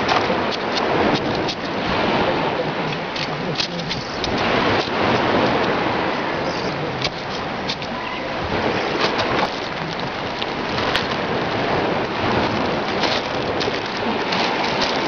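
Hands scraping and smoothing gritty soil in a raised garden bed close to the microphone: a steady crackly rustle with many small clicks.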